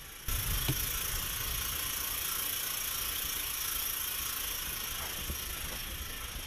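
Wind blowing across the microphone: a steady rushing hiss with irregular low buffeting, starting suddenly just after the start.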